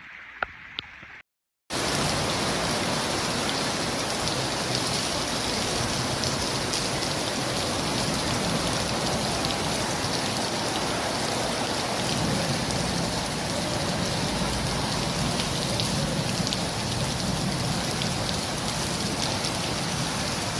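Heavy rain pouring down, a dense steady hiss that starts abruptly about two seconds in and keeps up without a break.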